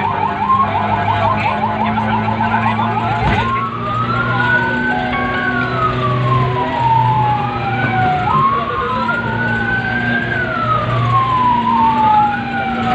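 Electronic emergency-vehicle sirens wailing in a slow rise and fall of about two to three seconds per cycle. For the first three seconds or so a fast yelp pattern runs over the wail, then stops with a knock. A steady engine hum sits underneath, heard from inside a moving vehicle.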